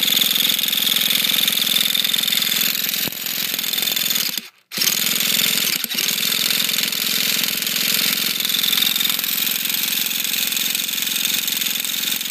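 Traxxas T-Maxx nitro engine being spun over by its starter, a loud steady whirring rattle with a high whine, stopping briefly about four and a half seconds in and cutting off near the end. The engine cranks but does not catch and run at its stock needle settings.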